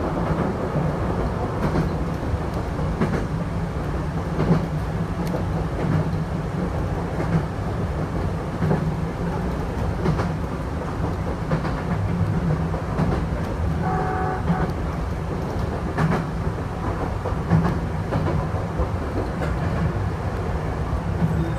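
Chichibu Railway electric train running along the line, heard from the front of the train: a steady low rumble with irregular clicks of the wheels over rail joints. A short high tone sounds briefly about two-thirds of the way through.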